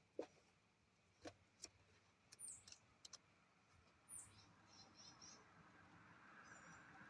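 Near silence, with a few faint sharp clicks in the first three seconds and two short, high chirps that fall in pitch. A faint hum builds slowly near the end.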